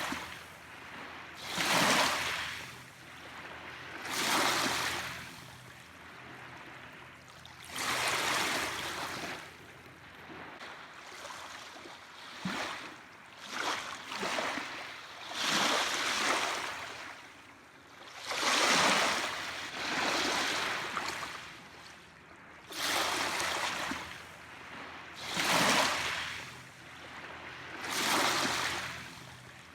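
Small waves washing in on a shore, each one a rush of water that swells and fades, one every two to three seconds at an uneven pace.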